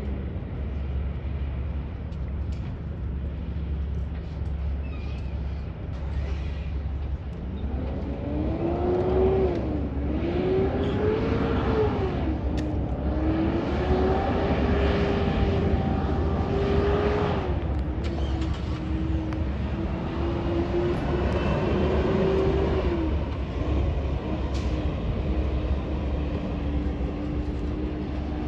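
A motor vehicle engine accelerating through the gears: its pitch climbs and drops back several times, then holds steady for the last few seconds, over a constant low engine rumble.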